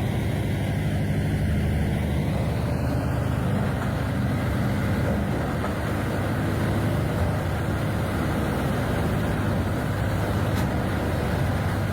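Large diesel engine of heavy wood-processing machinery running at a steady pace, a low even drone with no clear changes in load.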